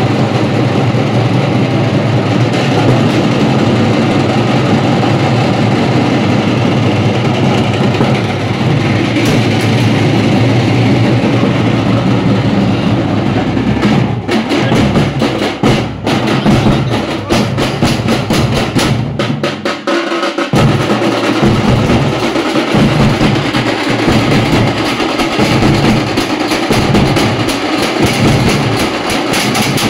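A street drum band of large strapped bass drums and snare drums playing loudly. It begins with a dense, continuous rolling. About halfway through it breaks into distinct rhythmic beats, pauses briefly, then picks the beat up again.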